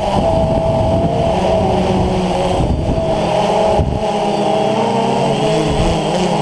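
DJI Phantom FC40 quadcopter's electric motors and DJI 9450 propellers buzzing in flight, heard from the GoPro mounted on the drone. The buzz holds a steady pitch that wavers slightly up and down as the drone manoeuvres.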